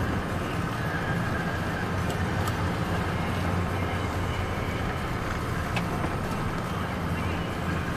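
A car driving, heard from inside the cabin: a steady low engine and tyre hum on the road, with a couple of faint clicks.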